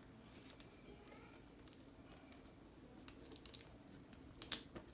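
Faint handling noises of a laptop's display panel and its cable connector being worked loose: small scattered plastic clicks and light rustling, with one sharper click about four and a half seconds in.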